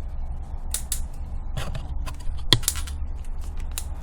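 Bicycle on a test ride making irregular sharp clicks and ticks under pedalling, over a steady low rumble. The mechanic traces the clicking to the saddle and the pedals, where he finds sand in the parts.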